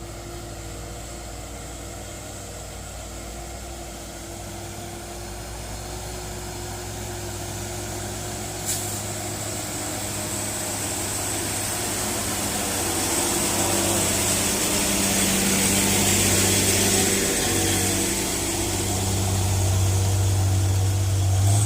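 Hino 500 FM 260 Ti dump truck's turbocharged six-cylinder diesel pulling up a steep grade under load. It is a steady low drone that grows steadily louder as the truck approaches, with tyre and road hiss building over the second half. A single sharp click comes about nine seconds in.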